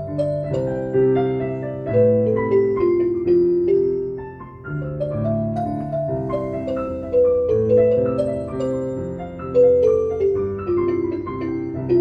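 Instrumental passage of a song with no singing: a piano plays a melody over sustained chords.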